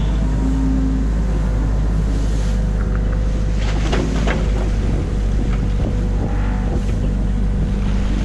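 Excavator's diesel engine running steadily, heard from inside the cab, with a few short knocks about four seconds in as the boom and bucket work.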